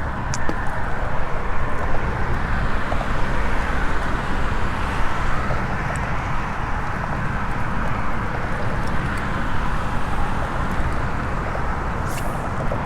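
Steady rushing outdoor noise, strongest in the low and middle range, with a few faint clicks about a second in and near the end.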